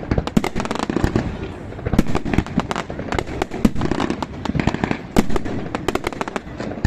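Firecrackers going off in rapid, irregular pops and sharp bangs, several per second, with a few louder cracks among them.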